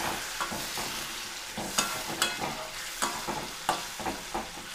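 Metal spatula stirring and scraping a metal pan of masala freshly thinned with water, the liquid sizzling and bubbling in the hot oil. Every second or so there is a sharp scrape of the spatula against the pan.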